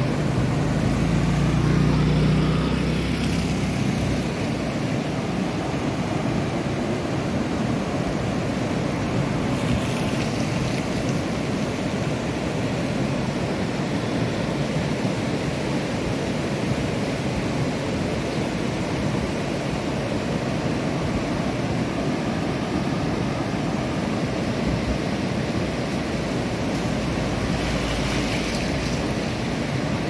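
Steady rushing roar of a river in flood, fast muddy water running high. A heavier low rumble sits under it in the first few seconds.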